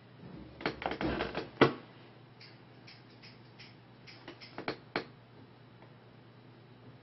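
A quick run of clicks and knocks about a second in, the loudest at its end, then a few scattered light clicks up to about five seconds in, over a faint steady low hum.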